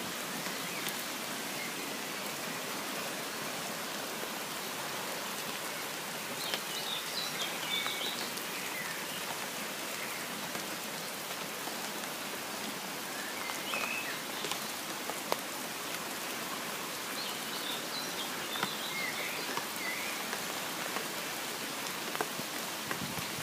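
Beck in flood: fast-flowing floodwater rushing steadily, with a few short high chirps over it.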